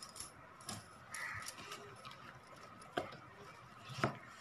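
Wire hand whisk working thick cake batter in a plastic bowl, with a few scattered sharp taps of the whisk against the bowl, the loudest about three and four seconds in.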